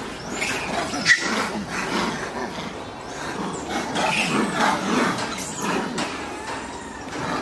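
Macaques calling, short overlapping cries rising and falling in pitch, with a sharp click about a second in.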